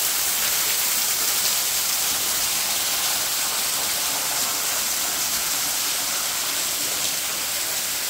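Waterfall pouring off a rock overhang and splashing onto wet rocks below: a steady, unbroken rushing hiss.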